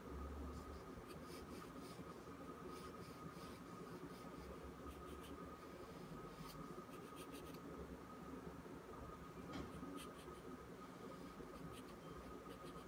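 Pencil scratching on paper in quick short shading strokes that come in clusters and stop near the end, faint, over a steady thin background whine.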